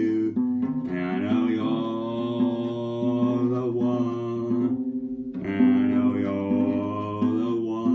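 A man singing two long held notes over an acoustic guitar, with a short break about five seconds in.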